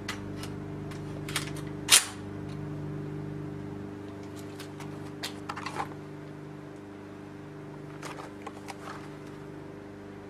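A single sharp shot from a 9mm carbine about two seconds in, with a few quieter clicks and knocks of handling before and after it, over a steady low hum.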